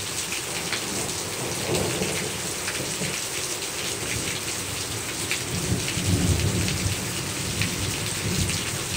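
Heavy rain from the tail end of a hurricane, pattering steadily with many drops and water spilling off a roof edge. A low rumble of thunder builds about halfway through and lasts to near the end.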